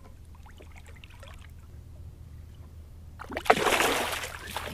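A splash in the water: a loud, sudden rush of splashing about three and a half seconds in that fades over about a second, after faint trickling.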